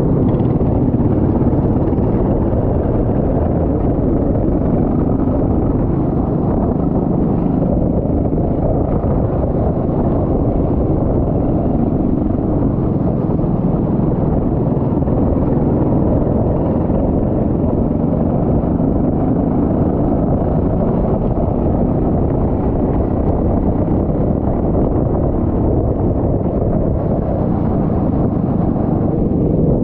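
Go-kart engine running steadily under way, loud and even throughout.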